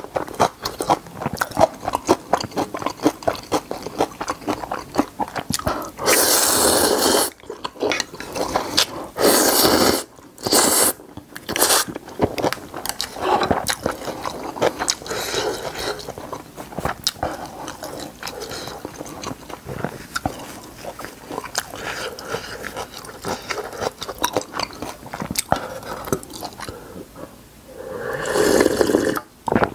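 Close-miked eating sounds: wet chewing with steady small smacking clicks, broken by long loud slurps of ramen noodles about six and nine seconds in. Near the end comes another loud slurp as broth is drunk straight from the pan.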